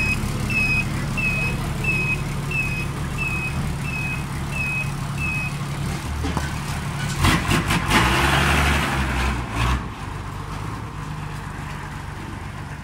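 A truck's reversing alarm beeping: short, high, evenly spaced beeps about one and a half a second that stop about five and a half seconds in, over a truck engine running steadily. About seven seconds in comes a brief burst of hiss and clicks.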